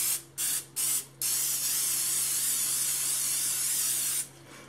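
Aerosol olive oil cooking spray: three short puffs in the first second, then one long steady spray of about three seconds.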